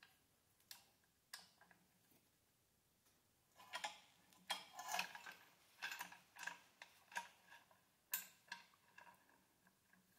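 Light, irregular metallic clicks and taps from a steel C-clamp's threaded screw, its sliding T-handle and a bushing driver being turned and shifted while they press a swingarm bearing into its bore. The clicks are sparse at first and come thick and fast from about three and a half seconds in.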